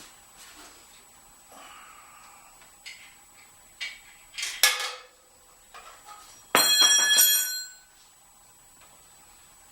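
Metal parts and tools clinking during engine assembly: a few light knocks, a sharp clink about four and a half seconds in, then a loud metal strike about six and a half seconds in that rings for about a second like a bell.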